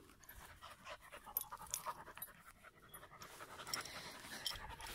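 Dogs at play panting faintly, with small scattered clicks and rustles.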